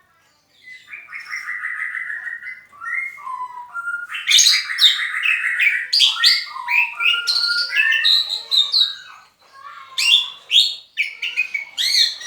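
A songbird singing a loud, varied song of rapid trills, chattering phrases and whistled notes, starting about half a second in, with a brief pause near the end.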